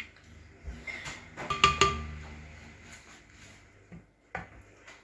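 Kitchen dishes clinking: two sharp clinks with a brief ring about a second and a half in, and lighter knocks before and near the end.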